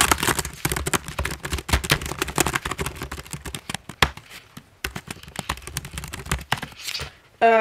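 Fast typing on a computer keyboard: a dense, irregular run of keystrokes that stops about seven seconds in.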